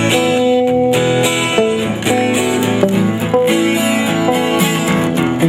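Band playing an instrumental passage of a rock song led by guitars, with strummed chords and a picked melody line.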